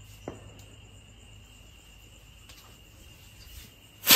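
Crickets chirping steadily, then near the end a sudden loud burst as a firework sky rocket ignites and shoots off its stick.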